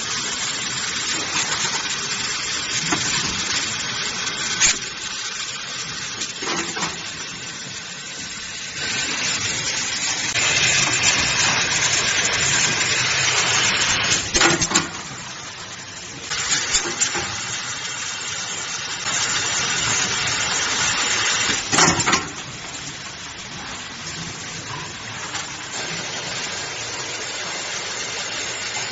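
Double-station extrusion blow molding machine running: a steady hissing noise, broken by several sharp knocks at irregular times.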